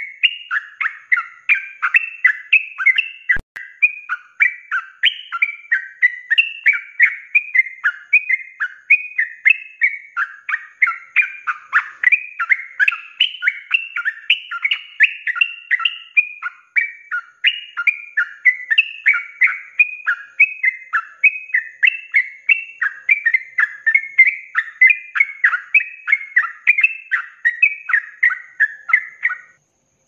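Yellow-vented bulbul (trucuk) singing in 'ropelan' style: a fast, unbroken string of short up-and-down phrases, about three a second, that stops abruptly near the end.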